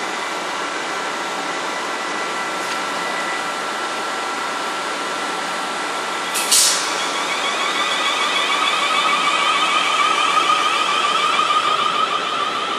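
Electric multiple-unit train running through a station: a steady rumble with a faint motor whine, a short sharp hiss about six seconds in, then a stronger, wavering motor whine that grows louder as the train moves.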